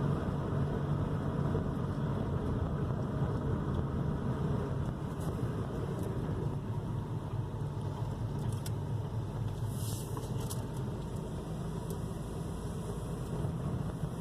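2001 Toyota Corolla under way at a steady low cruise, held to about 2,000 RPM, heard from inside the cabin: a steady low rumble of engine and tyre noise. A few faint clicks come about ten seconds in.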